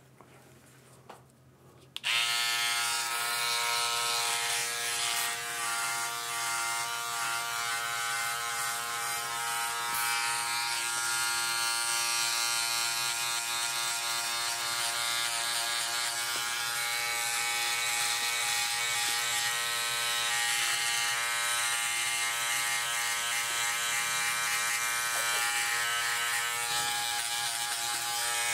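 Philips OneBlade electric trimmer-shaver buzzing steadily as it trims facial stubble, starting abruptly about two seconds in.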